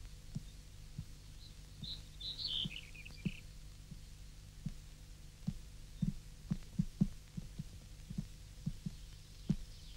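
Hooves of wild sheep knocking on rock as they walk: irregular dull knocks, one to three a second, thickest just past the middle. About two seconds in comes a short run of falling bird chirps, all over a low steady hum.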